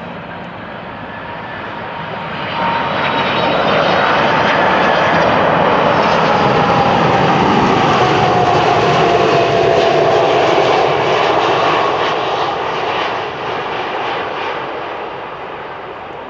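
Boeing 747-400 jet airliner passing low overhead on its landing approach, its four engines growing loud, holding, then fading. A whine falls steadily in pitch as it goes past.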